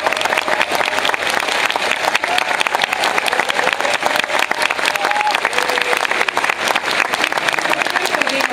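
A large audience applauding steadily, a dense patter of many hands clapping, with a few faint voices calling out in the crowd.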